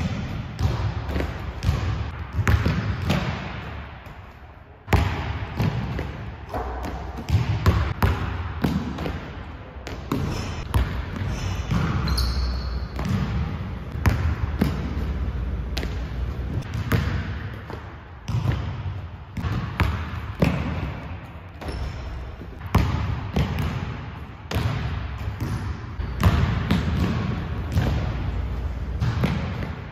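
A basketball being dribbled and bouncing on a hardwood gym floor, with repeated sharp thuds that ring briefly in the hall.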